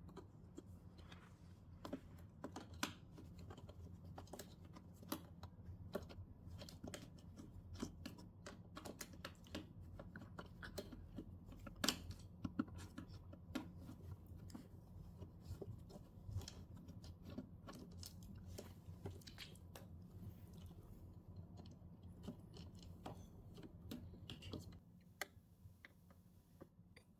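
Faint, scattered clicks, taps and scrapes of screwdrivers and screws being worked loose from a TV's plastic casing, with the sharpest click about halfway through. A low steady hum sits underneath.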